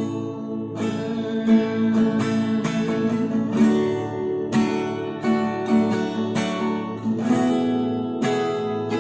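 Guitar strumming chords in a steady rhythm: the instrumental introduction to a worship song, before the singing comes in.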